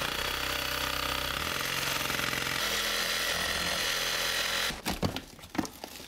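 Hand-held power saw cutting through a plaster wall along the line of the new doorway, running steadily and then stopping suddenly near the end. A few short knocks follow as pieces of the wall are pulled out.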